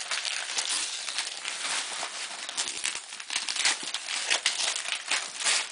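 Christmas wrapping paper being torn and crinkled by hand as a gift box is unwrapped: a continuous run of rustling and small ripping sounds.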